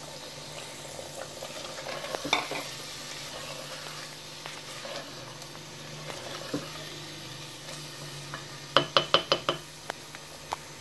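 Chicken curry sizzling in a clay handi as ground tomato is poured in and stirred through with a silicone spatula, over a low steady hum. A quick run of about six sharp taps near the end.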